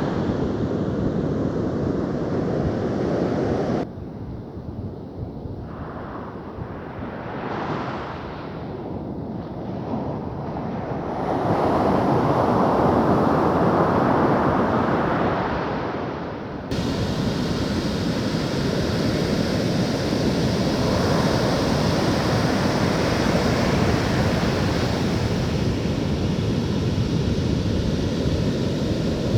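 Ocean waves breaking and washing in, with wind on the microphone. The sound swells for a few seconds in the middle. It changes abruptly twice, about 4 s in and about 17 s in, as at cuts between recordings.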